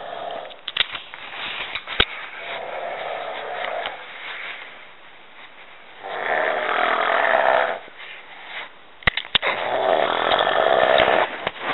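Three long snores in a row, each a rough, rattling sound a couple of seconds long, with quieter breaths in between.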